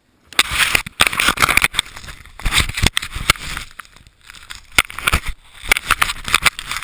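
Handling noise on a snow-packed action camera as it is dug out of the snow: dense crunching and scraping of snow and gloves on the housing, with many sharp knocks. It starts suddenly just after the start out of near silence.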